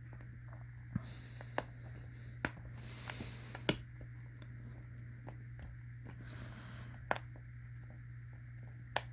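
Scattered light clicks and taps of Israeli 4A1 gas mask parts being handled and fitted together, about seven in all with longer gaps in the middle, over a steady low hum.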